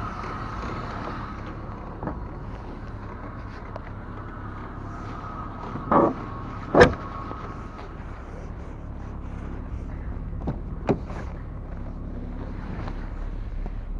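Car engine running steadily, with two loud sharp knocks about six and seven seconds in and a few fainter clicks later.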